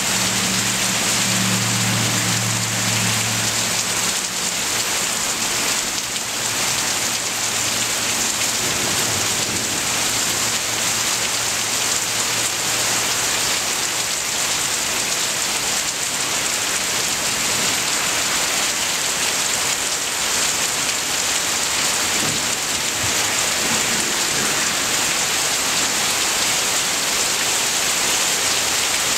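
Heavy downpour: steady hard rain falling on trees, foliage and grass, an even, dense hiss. A low hum underneath fades away over the first dozen or so seconds.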